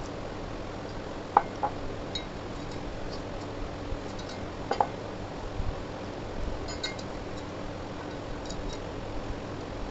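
Metal parts of a Bosch planer's guide rail clinking and clicking as they are handled and fitted together: a sharp click about a second and a half in, another near the middle, then a few lighter ticks, over a steady background hiss.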